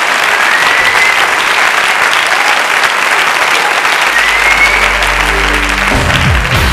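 Theatre audience applauding, with a couple of rising whistles from the crowd. Music fades in under the applause in the last couple of seconds, first a low steady tone, then a full band.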